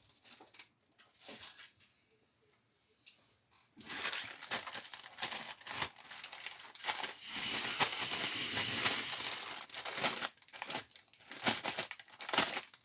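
Crinkling of a clear cellophane bag as cardboard die-cut pieces are pulled out of it and the bag is handled. It starts about four seconds in, after a near-silent pause, and goes on as dense crackling.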